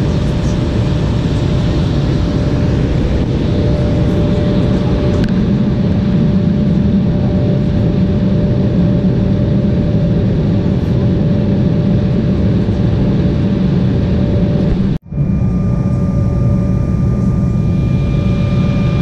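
Steady jet cabin noise of an Embraer 195 in flight: a constant rumble of its turbofan engines and the airflow, with a steady whine. About 15 seconds in the sound cuts out for an instant, and after that a higher steady whine joins in.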